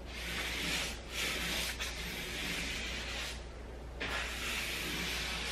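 A paintbrush brushing wall paint onto a painted wall, cutting in along painter's tape: bristles rubbing over the surface in about four strokes of a second or so each, a scratchy hiss with short pauses between.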